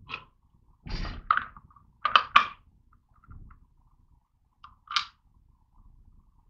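The black cover of a proportioning pump's valve block being handled and set into place: a short scrape about a second in, then sharp clicks and knocks, the loudest two close together about two seconds in and one more about five seconds in.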